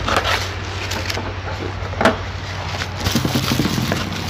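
Clear plastic bag crinkling and rustling as a glass food-processor bowl is pulled out of it, with handling knocks and a sharp crackle about two seconds in, over a steady low hum.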